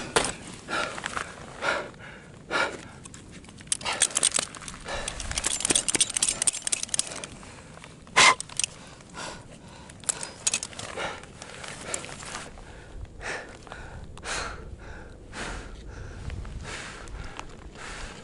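Ice axe and crampon strikes into frozen-waterfall ice, sharp and irregular, with the climber's hard panting breaths between them. Climbing gear clinks now and then.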